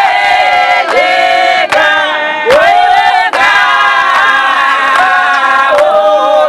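Women's choir singing together unaccompanied, with hand claps roughly once a second.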